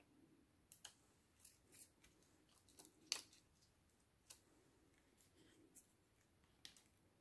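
Near silence with faint, scattered clicks and crinkles from a clear plastic sheet of self-adhesive rhinestones being handled and peeled. The clearest click comes about three seconds in.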